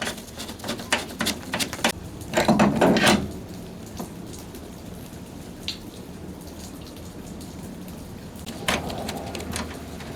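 Rain falling, with scattered sharp clicks and knocks and two brief louder bursts of noise, one about two and a half seconds in and one near the end.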